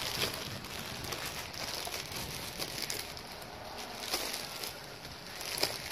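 Plastic packaging crinkling and rustling with irregular crackles as a rolled reflective windshield sunshade is unwrapped and handled.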